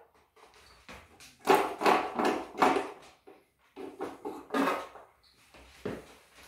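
Plastic water trough of a Tormek wet sharpener being handled and pulled out from under the wheel, scraping and knocking against the machine in a few short bursts.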